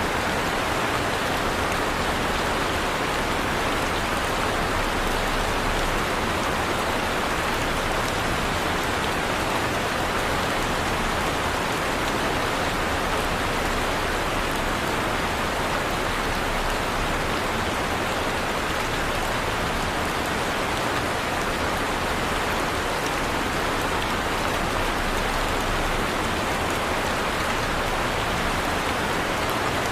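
Heavy rain falling steadily, an even hiss of rain on a surface with no thunder or breaks.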